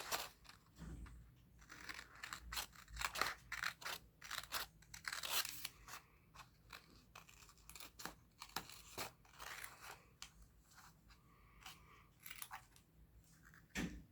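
Scissors snipping through paper covered in clear tape: a faint run of short, irregular cuts.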